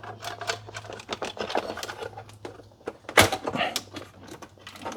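Memory sticks being unlatched and pulled from a PC motherboard's slots: a run of small plastic clicks and taps, with one louder click about three seconds in.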